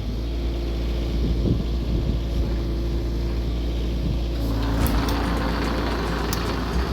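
Excavator engine running steadily at a low, even hum. About four seconds in, a broader hissing noise joins it as the machine starts working.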